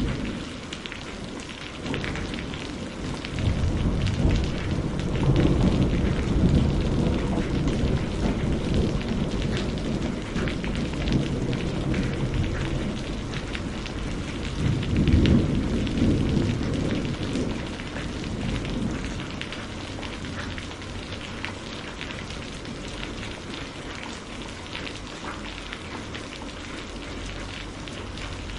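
Steady rain falling, with low rumbles of thunder that build a few seconds in and swell again about halfway through before fading.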